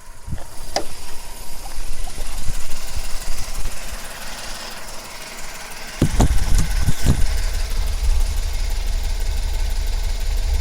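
A 2002 Volkswagen Polo 9N's 1.2-litre three-cylinder engine starting about six seconds in, with a few knocks, then running with a steady low rumble. Before that there is uneven mechanical noise with a few sharp clicks.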